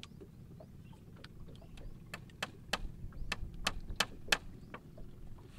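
Hammer striking, fastening a crosspole to an upright wooden pole of a shelter frame. Light taps at first, then a run of sharper knocks from about two seconds in, about three a second and loudest near the end.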